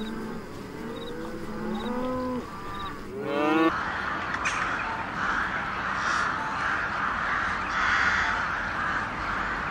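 Cattle mooing, several overlapping calls, the last one rising and the loudest. About four seconds in this gives way to a large flock of birds calling all at once: a dense, continuous chatter that runs on.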